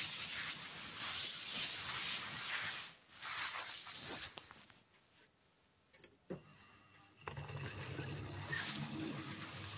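A model train running on its track: a steady hiss and rattle of small wheels rolling on the rails. It fades almost away for a couple of seconds in the middle, then returns with a low electric motor hum as the model locomotive 'City of Bristol' runs close by.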